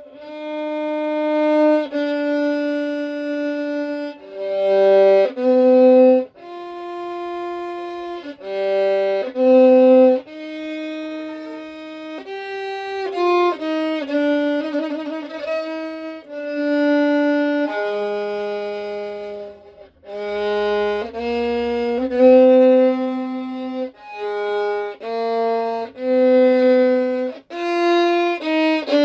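Solo violin playing a slow, improvised melody of held bowed notes, with vibrato on some notes about halfway through.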